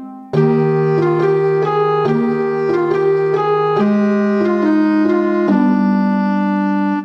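Instrumental background music: a keyboard-like melody over held chords, with notes changing about every half second and a brief break just after the start.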